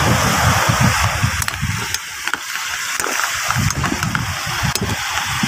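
A metal ladle scraping and tapping on a tray as chunks of raw squash are pushed off it and drop into a large aluminium cooking pot, giving scattered sharp clicks and soft low thuds. A steady hiss runs underneath.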